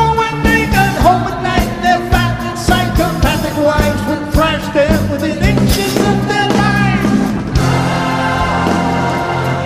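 Live rock band playing: drum kit, electric bass and guitars, with a pitched lead line bending over the top. About three-quarters of the way through the drums stop, leaving a sustained held chord.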